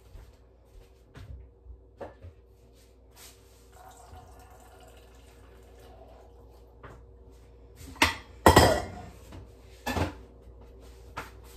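Kitchen clatter of dishes and utensils being handled on a countertop: scattered knocks and clinks, the loudest a cluster about eight seconds in and another knock about ten seconds in.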